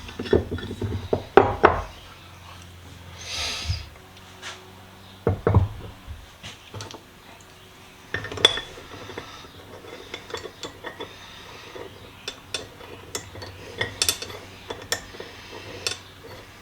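Metal vise parts clinking, knocking and scraping against each other as they are handled and fitted together during reassembly, with a few louder knocks among many small ticks.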